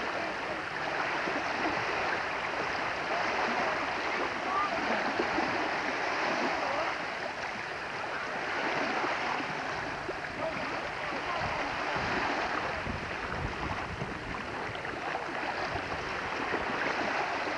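Steady rush of water and wind on a camcorder microphone, with a low buffeting from the wind about twelve seconds in.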